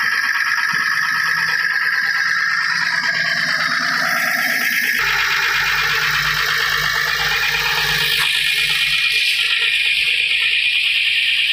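A Tata SE1613 truck's diesel engine running steadily, heard close up as a loud rushing clatter; a low hum joins about five seconds in.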